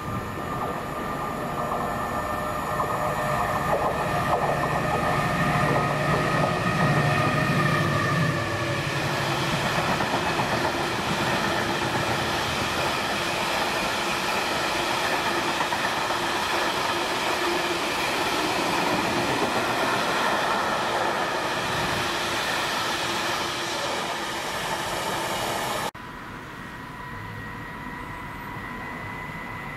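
A Class 70 diesel locomotive passes with its engine running, loudest about six seconds in. It is followed by a long rake of freight box wagons rolling and clattering over the rails. Near the end the sound cuts abruptly to a quieter approaching Class 70 diesel locomotive, its engine running.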